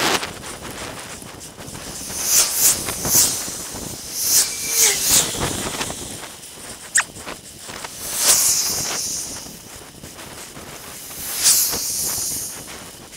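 Wind buffeting the microphone in repeated gusts of hiss, with a single sharp click about seven seconds in.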